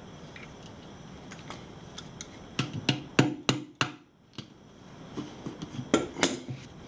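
Adjustable wrench clicking and knocking against a tyre-pressure sensor's valve-stem nut and the alloy wheel rim, a string of sharp metallic clicks in two bunches, about three seconds in and again near six seconds.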